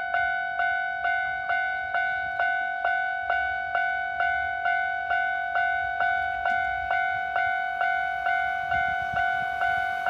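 Japanese railway level-crossing warning bell ringing, an electronic bell tone repeating about twice a second. Near the end the noise of an approaching train begins to rise under it.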